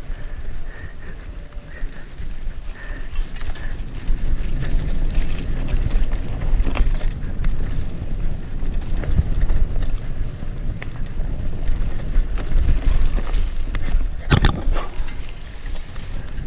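Mountain bike descending a dry dirt trail: wind buffeting the microphone over the rumble of tyres on dirt and the bike rattling over bumps. It gets louder about four seconds in as speed picks up, with scattered knocks and one sharp hard knock about fourteen seconds in.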